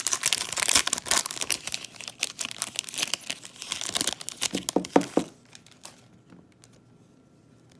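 A foil trading card pack's wrapper being torn open and crinkled, dense crackling for about five seconds, then it stops.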